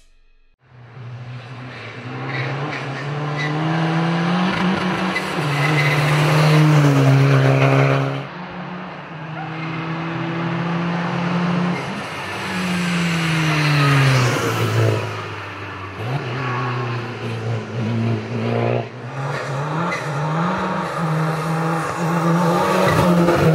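VW Golf Mk1 race car's 1.9 TDI four-cylinder turbodiesel driven hard uphill: the engine note climbs and drops again and again as it shifts through the gears.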